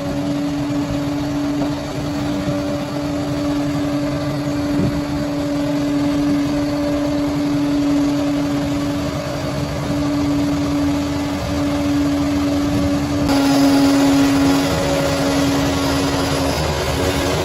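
Bulldozer's diesel engine running steadily while working, a constant drone with a steady high hum over it, changing slightly about thirteen seconds in.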